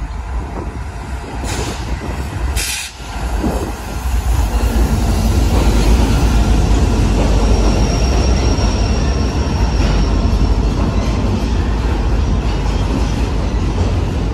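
Several BNSF diesel locomotives passing close by, getting louder about four seconds in as they draw level. Then comes the steady rumble and steel-wheel rolling noise of a long string of autorack cars going past.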